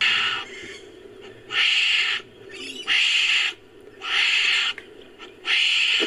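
Wombat-style creature sound effect built from wombat recordings: a series of short raspy calls, each about half a second long, repeated about every second and a half, five in all.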